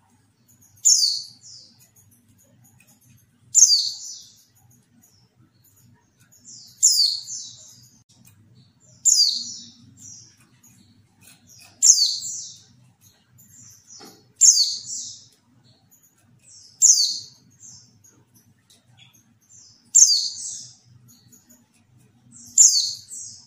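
A female white-eye (pleci) gives short, high chirping calls, each opening with a quick downward sweep. There are nine calls, spaced about two and a half to three seconds apart.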